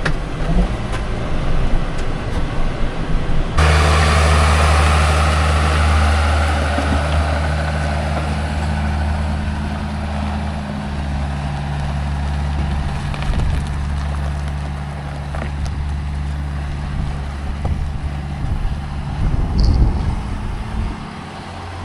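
A motor vehicle's engine running steadily, a low drone that sets in sharply about three and a half seconds in and eases slightly over time.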